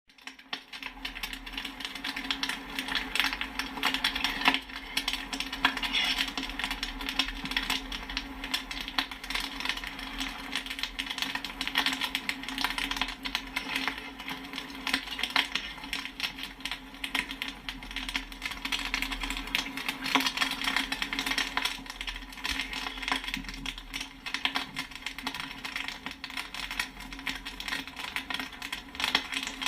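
Popcorn kernels popping and pinging in a rapid, irregular, continuous patter of sharp pops over a steady low hum.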